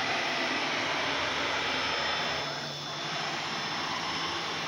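A mini CNC router with a 500 W spindle running steadily while its stepper-driven axes move through a pocketing toolpath at high speed. About two and a half seconds in, the sound briefly dips in loudness and sweeps down and back up in pitch.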